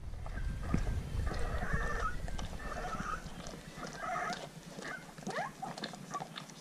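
Seventeen-day-old yellow Labrador retriever puppies squealing and grunting as they jostle to nurse, with small wet clicks from suckling and licking. Short squeals come about a second in, and again at two, three and four seconds, with quick rising squeaks near five seconds.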